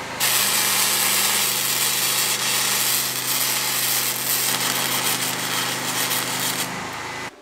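Unimig Viper MIG welder with flux-cored wire laying a continuous bead on steel: a steady crackling, hissing arc over a low hum, lasting about six and a half seconds and cutting off abruptly near the end.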